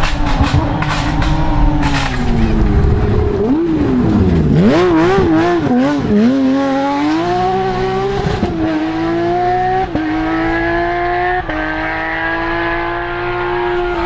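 Porsche 997 GT3 rally car's flat-six engine at full throttle, passing close. A few sharp cracks near the start, then the revs fall and waver before climbing again, stepping through three quick upshifts as it pulls away.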